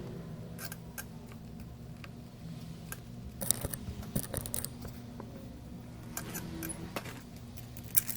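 Scattered small clicks and metallic taps of tools and parts being handled at a repair bench, busiest about three and a half seconds in, over a steady low hum.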